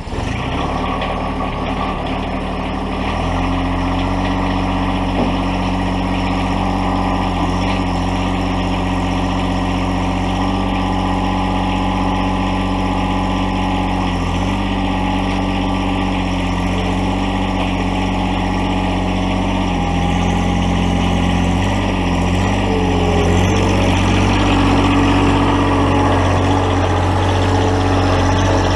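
John Deere 1023E compact tractor's three-cylinder diesel engine running just after starting. Its speed steps up about three seconds in, then holds a steady note with a few small changes in pitch.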